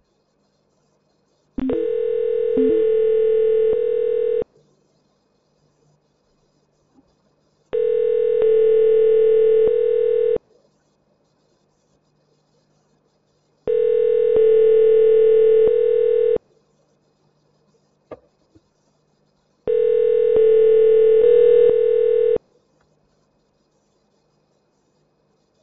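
Telephone ringback tone on an outgoing call over a phone line: four rings, each a steady tone of about two and a half seconds, repeating every six seconds. The called number is ringing and has not yet answered.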